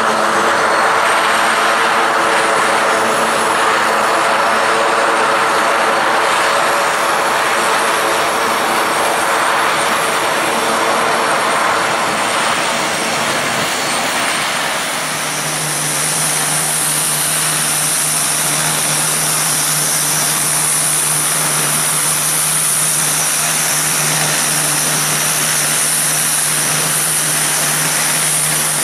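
PZL M28 Bryza twin turboprops running as the aircraft taxis. About halfway through the sound cuts to an Antonov An-26's turboprops running, with a steady low hum and a high whine.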